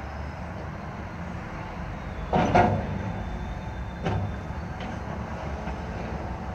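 Caterpillar wheeled excavator's diesel engine running steadily, with a loud clank from the bucket working the ground about two and a half seconds in and a lighter clank about a second and a half later.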